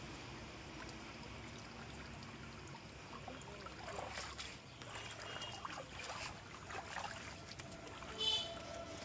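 Water sloshing and trickling as a person wades through shallow water with a wet cast net, with splashes in the middle. A brief high-pitched sound near the end.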